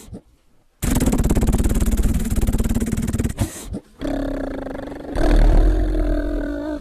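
A child imitating a helicopter with a rapid, evenly pulsing mouth noise. After a short pause comes a long, steady hummed engine noise for a car, louder and rumbling near the end.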